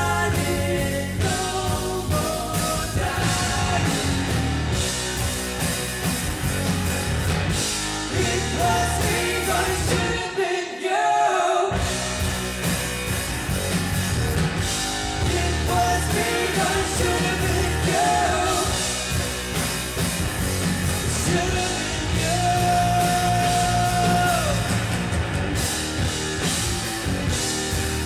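Live rock band playing: electric guitar, bass guitar and drum kit, with singing. The bass and drums drop out for about a second near the middle, then the full band comes back in. A long note is held later on.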